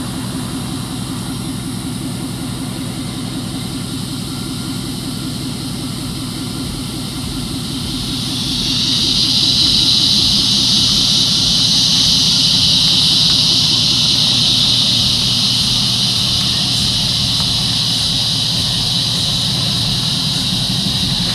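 Ford F-150 pickup's engine idling steadily. From about 8 s in, a loud high-pitched steady hiss joins it and stays.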